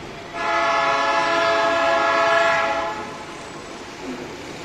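Freight locomotive air horn sounding one long blast of several tones together, starting about a third of a second in and cutting off after about two and a half seconds.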